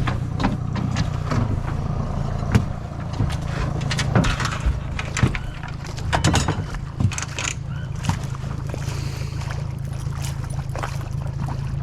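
A boat's motor running steadily under way, with irregular sharp knocks and clatter over the hum.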